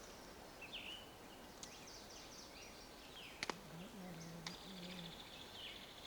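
Faint birdsong: scattered chirps and a buzzy trill from small birds. A single sharp click comes about three and a half seconds in, followed by a faint low hum for under two seconds.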